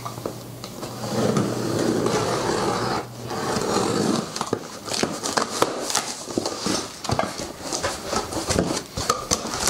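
Packing tape being ripped off a cardboard shipping box in two long pulls. Then the flaps open and plastic-wrapped drum-rack parts crackle and click as they are handled.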